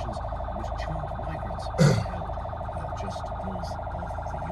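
Police escort car's siren sounding a fast pulsing tone that holds steady in pitch, with one brief loud burst about two seconds in.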